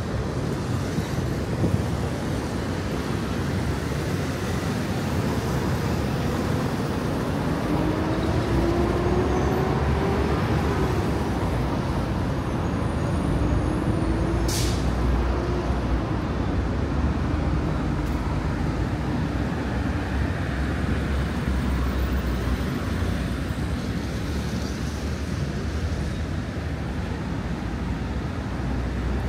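Busy city-street traffic: a steady rumble of passing cars and buses. Midway, engine tones rise and fall in pitch, and one short, sharp hiss comes about halfway through.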